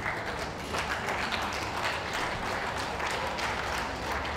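Ringside audience applauding, a dense patter of many hands clapping that breaks out suddenly and keeps going.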